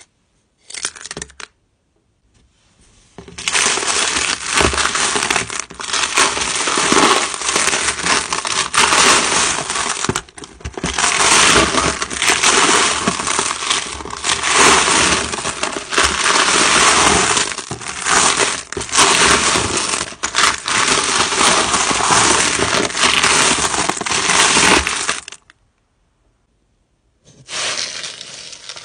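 Small tumbled stones and crystal chips rattling and clattering against each other in a plastic bin as they are stirred and shifted by hand. A brief rattle comes about a second in, then a long continuous clatter from about three seconds in that stops for a moment near the end and starts again.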